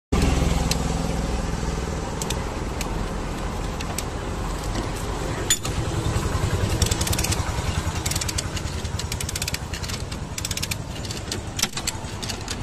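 Lever chain hoist (come-along) ratcheting in runs of rapid clicks as its handle is pumped, pulling the accident-damaged front apron of a car straight. A low steady engine hum runs underneath.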